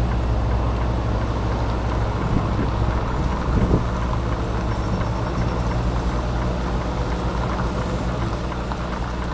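Semi-truck diesel engine running steadily as the tractor-trailer creeps through a slow U-turn, heard from inside the cab, with a brief louder, rising moment about three and a half seconds in.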